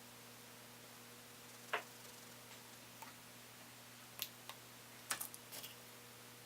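A handful of faint, sharp clicks and taps from small repair tools working on a laptop's internal parts, with the clearest about two seconds in and a quick cluster near the end. A steady low hum runs underneath.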